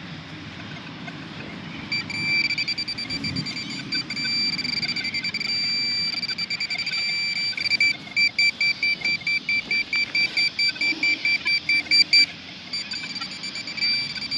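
High-pitched electronic target tone from metal-detecting gear. It holds a steady beep, then breaks into rapid pulses about three to four a second, signalling more metal still in the hole.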